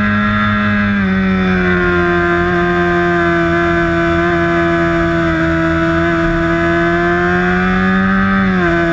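Sport bike's inline-four engine heard from the bike itself, pulling hard at high revs with its pitch climbing slowly. The pitch drops sharply at a gear change about a second in and again near the end.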